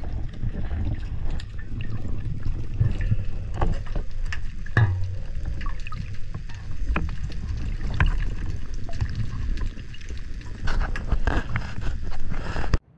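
Muffled underwater sound through an action camera's waterproof housing: a low rumble of moving water with scattered clicks and knocks, cutting off suddenly near the end.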